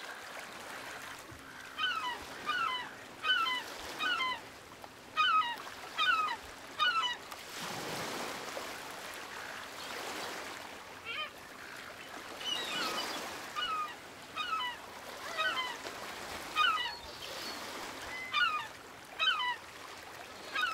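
Gulls calling in short, downward-sliding cries, in clusters of two or three throughout, over the wash of breaking surf that swells several times.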